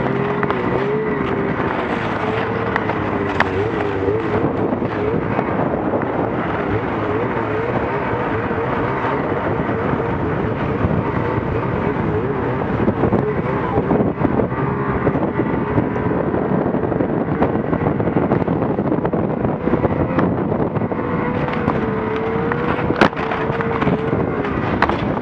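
Snowmobile engine running under throttle, its pitch wavering up and down as the sled rides over the snow. Near the end there is one sharp knock.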